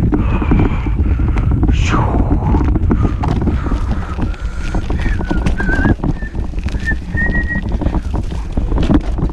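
Wind buffeting an action camera's microphone during a mountain-bike ride on a trail, with a steady run of knocks and rattles from the bike bouncing over bumps. A thin, wavering whistle-like tone comes in after about two seconds and fades out near the end.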